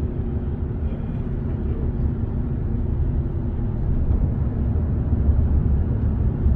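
Steady low rumble of a car driving, road and engine noise, growing slightly louder about four seconds in.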